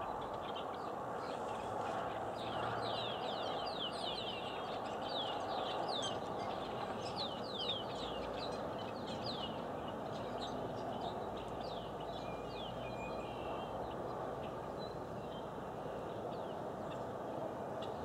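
A flock of red-winged blackbirds calling: many short, high, falling calls overlapping, thickest in the first half and thinning out to a few after about thirteen seconds, over steady background noise.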